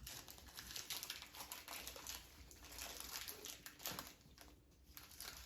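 Faint crinkling of a Kit Kat's plastic wrapper as it is handled and opened, a run of small irregular crackles.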